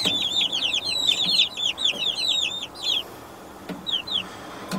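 A brood of Rhode Island Red chicks peeping: many quick, high peeps overlapping in a dense chorus that thins out about three seconds in, leaving a few scattered peeps.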